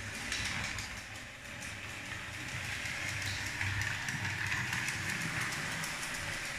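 LEGO 12V train motor carriage running steadily, a whirring hum with fast light clicking of small wheels over the plastic track. It gets louder right at the start as the train nears and then holds steady.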